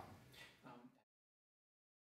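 The tail of a man's last spoken word fading into faint room tone, then dead digital silence from about a second in.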